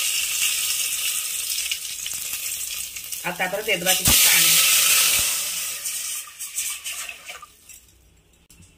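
Cumin seeds and bay leaves sizzling in hot ghee in a metal pot. About four seconds in, water is poured in after a sharp knock, and the sizzle swells into a loud hiss that dies away over the next few seconds.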